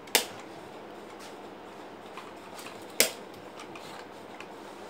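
Pen tapping and writing on notebook paper: two sharp clicks about three seconds apart, with faint ticks of the pen between them.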